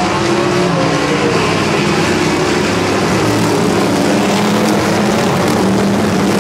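A pack of NASCAR modified race cars' V8 engines running together around the track, several engine notes overlapping and rising and falling as the cars pass through the turns.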